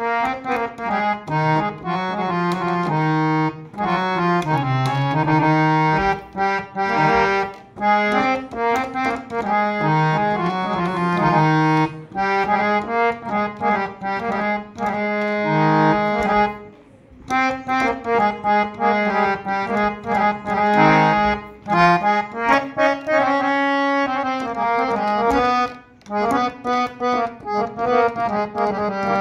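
Old Pakrashi hand-pumped harmonium, a two-reed-set (bass and male) standard model tuned to A440, playing a melody with held notes over a sustained lower drone. The playing breaks off briefly a little over halfway through, then resumes.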